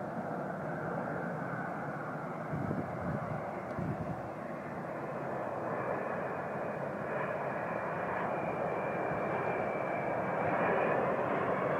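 The Stratolaunch carrier aircraft's six Pratt & Whitney PW4056 turbofan engines in flight: a steady jet roar that slowly grows louder as the plane nears, with a thin high whine coming in about halfway through.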